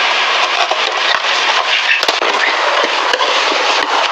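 Cardboard shipping box being cut open with a knife and handled close to the microphone: continuous crackling and scraping of cardboard and packing tape, with scattered sharp clicks.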